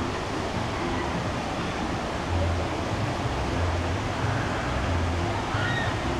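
Water park ambience: a steady rush of water, with a low, pulsing beat coming in about two seconds in.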